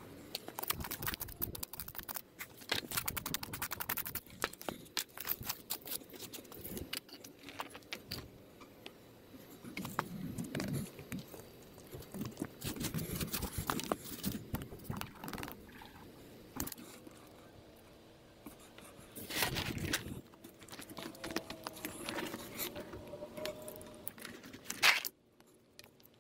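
Hands working in a dirt trench: scraping and crunching of soil and gravel as flexible sprinkler pipe is handled and pressed into place, with many small scattered clicks. One sharp click comes near the end, and then the sound drops off suddenly.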